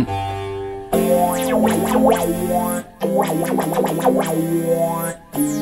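Korg microKORG synthesizer being played: sustained chords that change about every two seconds, with a busy flurry of quick notes above them.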